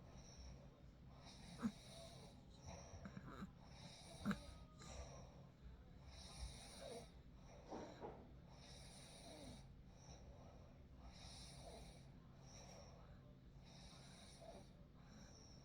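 A sleeping person breathing and snoring softly, with a faint hissing breath every second or so in a steady rhythm. Two sharp little clicks come at about one and a half and four seconds in.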